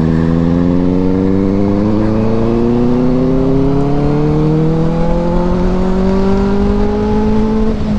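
Benelli 600i inline-four engine accelerating through one long gear, its pitch climbing steadily, then dropping with an upshift near the end. Low wind rush runs underneath.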